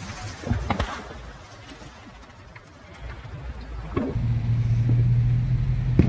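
Scattered sharp firework pops, with a steady low hum that starts about four seconds in.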